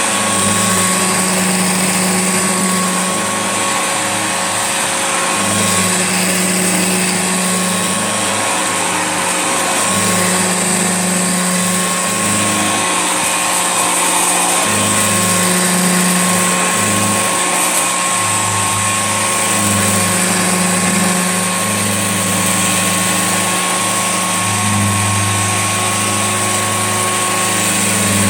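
Old Hoover Junior upright vacuum cleaner running steadily, its motor whine holding a constant pitch, with a lower hum that comes and goes irregularly.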